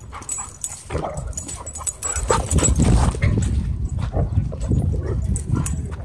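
Several dogs, among them a husky, a Labrador and a Doberman, wrestling roughly, with yips, short barks and whimpers over a constant low scuffling.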